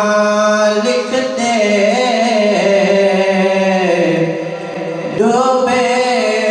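A man's voice singing a naat solo, drawing out each syllable in long held notes that waver and slide in pitch. The line eases off about four and a half seconds in, and a new phrase starts with a rising slide just after.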